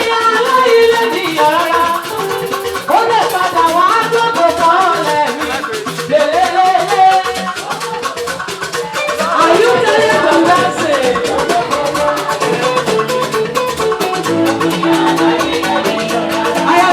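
Live gospel praise-band music, with a shaker rattling a steady, fast rhythm over a wavering melody line and a bass line.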